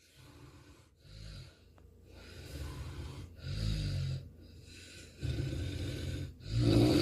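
A man snoring: a series of low, rattling snores, one with each breath, growing louder, with the loudest near the end.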